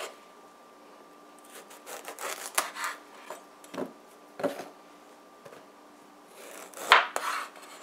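A kitchen knife cutting through raw green squash on a wooden cutting board: several separate cuts with short scraping and knocks of the blade and pieces on the board, the loudest near the end. A faint steady hum runs underneath.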